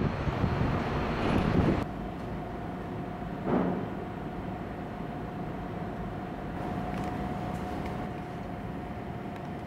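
Outdoor city street noise that cuts off after about two seconds, followed by the steady running hum of a Pittsburgh funicular incline with one constant whining tone, and a brief louder rush about three and a half seconds in.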